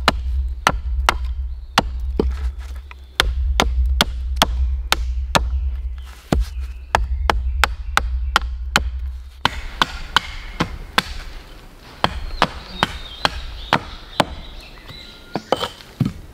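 Chopping blows of a blade into wood on a stump, quick and regular at about two to three a second for the first nine seconds or so, then sparser and lighter.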